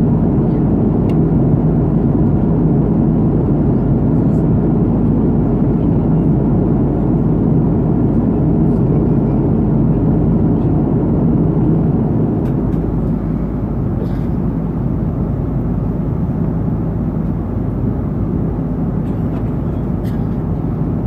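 Airbus A330-200 heard from inside the cabin in flight: a steady drone of its GE CF6-80E1 turbofan engines and airflow, a little quieter from about halfway.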